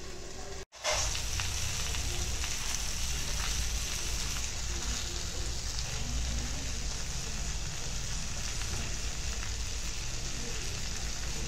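Marinated chicken drumsticks shallow-frying in oil in a cast-iron pan: a steady sizzle with fine crackling. It cuts out briefly under a second in, then carries on evenly.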